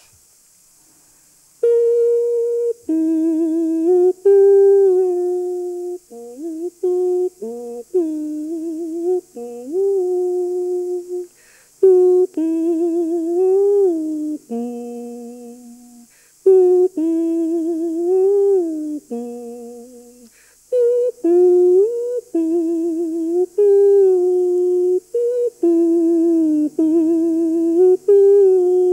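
A man imitating a đàn bầu (Vietnamese monochord) with his voice. He hums a melody of held notes with wavering vibrato and sliding pitch bends, in short phrases, beginning about a second and a half in.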